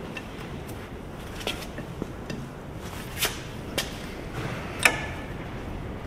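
A handful of sharp metallic clinks and taps from a hand tool working on the top cap of a backhoe's rotary swing cylinder, the loudest a little before the end, over a steady low hum.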